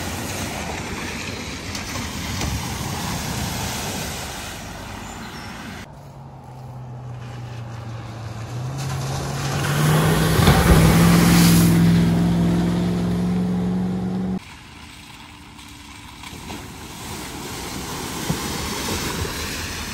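Vehicles driving through a flooded ford, with water rushing and spraying off the wheels. About six seconds in, a vehicle's engine revs, its note climbing in steps, as it ploughs through with a big splash, the loudest part. This cuts off abruptly at about fourteen seconds, and quieter splashing of a car wading through follows.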